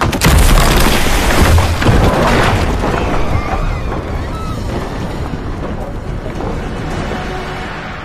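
A large wooden sailing ship's hull crashing into a wooden dock: a sudden heavy boom about a quarter second in, followed by a long rumble that slowly dies away.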